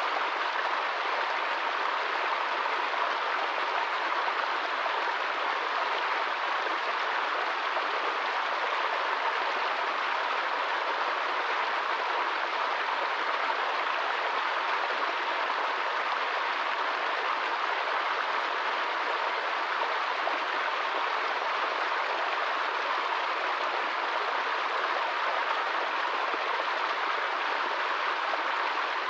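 Small woodland stream running over rocks in a low cascade: a steady, even rush of water.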